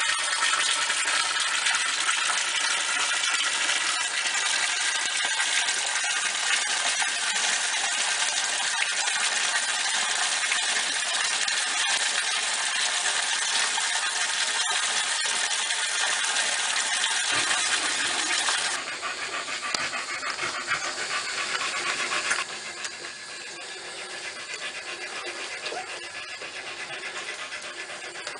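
A litter of young American Staffordshire terrier puppies squeaking and whimpering as they nurse, with the mother dog panting. The sound drops in level about two-thirds of the way in.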